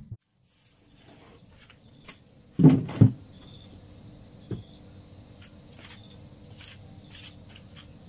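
Two dull thumps close together about three seconds in as a styrofoam box is set down on a concrete floor, then a lighter knock. Faint insects chirp steadily in the background.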